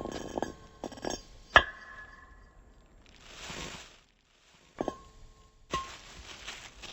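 Glass objects clinking and tapping together: a series of sharp clinks, each ringing on briefly, the loudest about a second and a half in. A short soft rushing noise comes in the middle.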